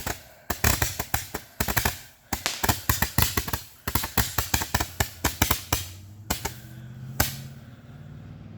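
A firework going off in rapid strings of sharp bangs and cracks, several a second, for about six seconds. Two last single cracks follow and then it stops.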